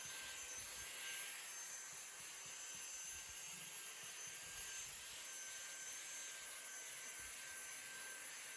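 Faint steady room noise: an even hiss with a few thin, high, steady tones and some soft low knocks.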